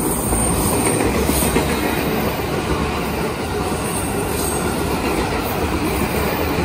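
Electric commuter train passing on the next track, a steady rush of wheel and rail noise.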